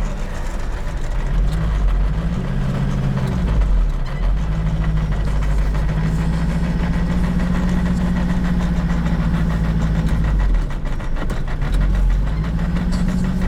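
Hyundai Porter light truck's engine running while driving, heard from inside the cab, with a steady low rumble; its pitch rises and falls several times as it pulls away and changes speed.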